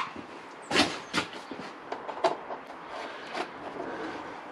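Scattered sharp clicks and knocks of hand tools and small screws being handled while a motorcycle's plastic tail panel is refitted, the loudest about a second in.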